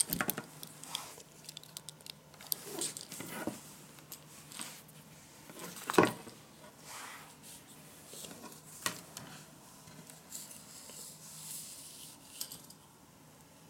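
Hands handling a leather belt on a wooden tabletop: scattered rustles, light taps and scrapes, with one sharp knock about six seconds in.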